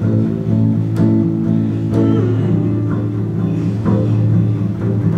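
Acoustic guitar and double bass playing a song live. The guitar is strummed about once a second over held bass notes.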